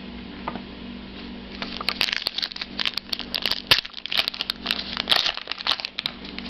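An Allen & Ginter trading card pack wrapper being torn open by hand, crinkling and crackling in a rapid run of small snaps from about a second and a half in until near the end.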